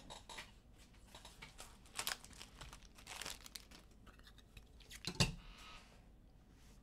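Faint rustling and light clicks of trading cards and their packaging being handled on a tabletop, with one sharper tap about five seconds in.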